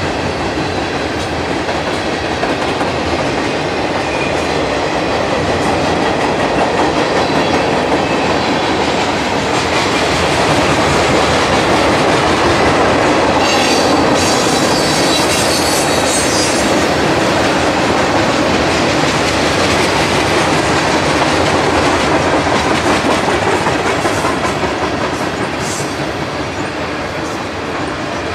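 Train cars rolling past at speed, a steady rumble with wheels clicking over the rail joints. About halfway through a high wheel squeal rises briefly over it, and the sound eases off a little near the end.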